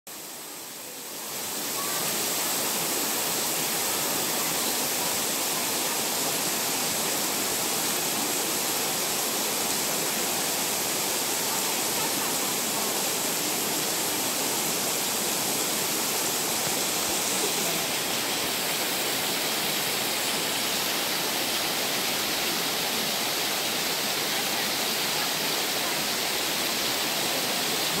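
Bigăr Waterfall: water spilling in thin curtains over a moss-covered rock dome into the river below, a steady rush of falling water. It fades in over the first two seconds, then holds level.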